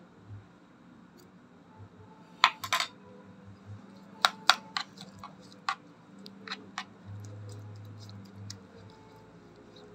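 Metal spoon clicking and tapping against a nonstick frying pan while seasonings are added and mixed into minced garlic and chillies, with about eight sharp clinks spread over a few seconds. A low hum runs briefly about seven seconds in.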